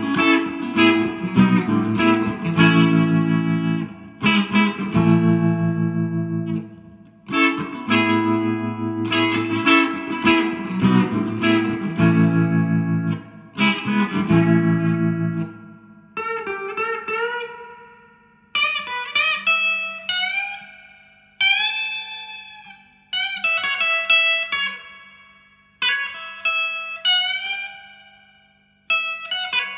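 Electric guitar, a 1983 Squier JV Telecaster played through a 1963 Selmer Thunderbird Fifty valve amp with Celestion Greenback speakers. For about the first half it strums full chords in a steady rhythm. Then it switches to single-note lead phrases with string bends, each note left to ring out and fade.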